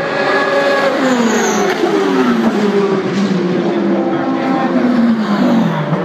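Several race cars passing at speed one after another. Their engine notes overlap and each falls in pitch as it goes by.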